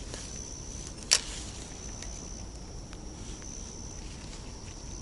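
Insects trilling in a steady high-pitched drone that breaks off briefly now and then, with one sharp click about a second in.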